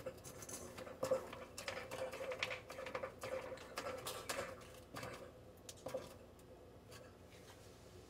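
A number 15 Torx screw being driven back into the plastic sump cover of a Kenmore Ultra dishwasher: a run of small clicks and scratches of the driver and screw against the plastic, dying away about six seconds in.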